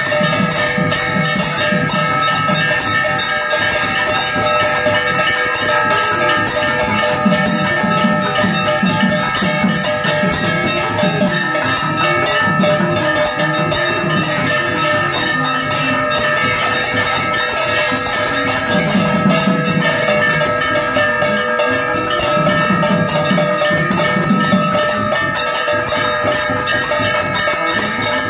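Temple bells ringing without a break through an aarti to Lord Shiva, a dense, steady ringing of many tones. Underneath it, a lower sound swells and fades now and then.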